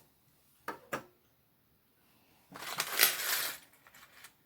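Two sharp clicks a little under a second in, then a burst of crackling, rustling handling noise from about two and a half seconds in, as craft pieces for a feeder are handled and worked.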